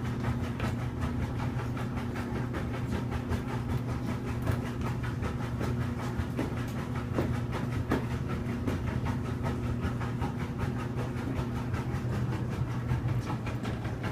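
Steady mechanical hum with an even, rapid clatter of about four clicks a second.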